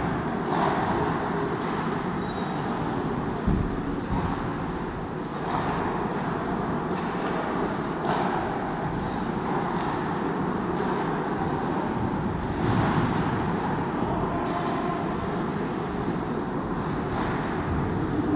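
Ice hockey rink sound: a steady scraping rush of skates on the ice over a faint constant hum, broken by a few sharp knocks of sticks and puck. The clearest knocks come about three and a half seconds in and near the middle.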